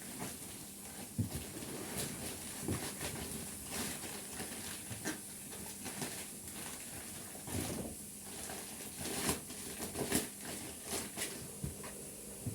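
Irregular soft knocks, clicks and rustles of handling, over a steady high hiss.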